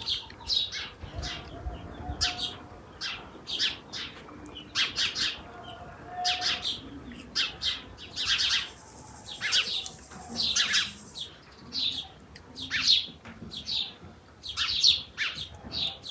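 Small songbirds chirping, many short, sharp calls following one another all through, with a steady high hiss for about three seconds in the middle.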